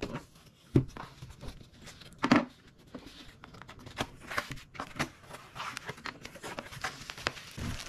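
A white cardboard mailer box being handled and opened: cardboard flaps lifted and folded back with scattered rustles and clicks. Two sharper knocks come about a second and two seconds in.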